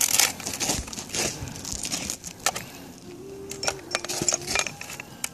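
Hands working an aluminium solar-mount flashing plate and its standoff post over asphalt shingles: irregular scraping and crinkling with many sharp metal clicks.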